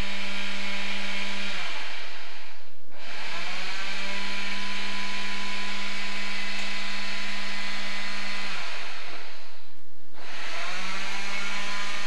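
A small electric motor whining steadily in runs of a few seconds, switching off about a second and a half in, running again from about three to eight and a half seconds, and starting once more near the end; each time it stops, its pitch falls as it spins down.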